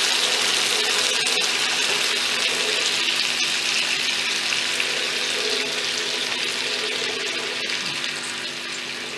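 Coconut milk poured into a hot oiled pan of shallow-fried alu vadi, sizzling with a steady hiss and light crackling that slowly dies down as the milk cools the oil.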